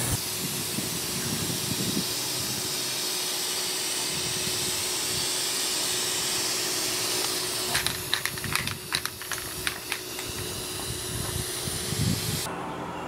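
Aerosol spray-paint cans hissing as paint goes onto a steel roof-rack frame: a long steady spray, then a quick run of sharp clicks about eight seconds in before the hissing carries on.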